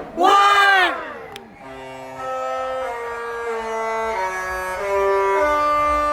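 A crowd's shout at the end of a countdown fades in the first second. Then the Disney Wish's ship's horn plays a slow Disney tune, held notes stepping from one pitch to the next.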